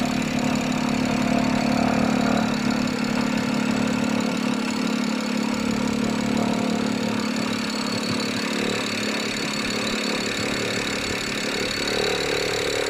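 BMW E91 325i engine running at a slightly raised idle, with a rattle that shows up only at these higher revs and whose cause the owner does not know. The engine note shifts about two and a half seconds in and again near the end.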